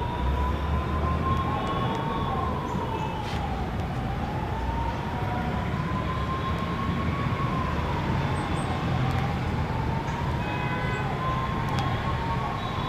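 A siren wailing slowly, its single tone rising and falling about every five seconds, over a steady low rumble.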